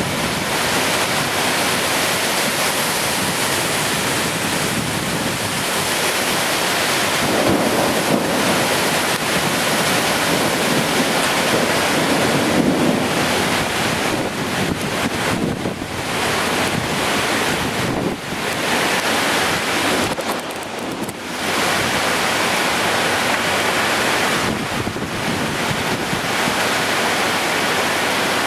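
Heavy rain pouring and strong wind gusting through trees in a severe storm: a steady loud rushing hiss, with wind buffeting the microphone and a couple of stronger gusts in the first half.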